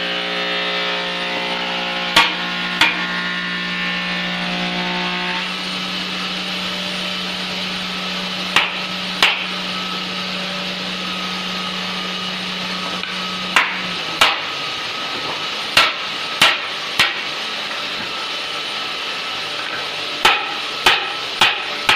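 Hammer striking wood as door parts are knocked together: about a dozen sharp blows, in groups of two or three with pauses between. A steady hum runs under them and stops about two-thirds of the way through.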